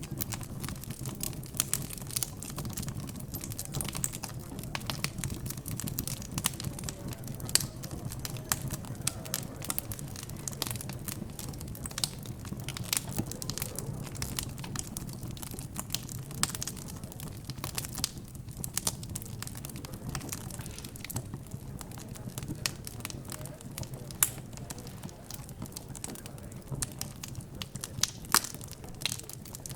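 Wood fire crackling, with frequent irregular sharp pops, over a steady low hum of background chatter.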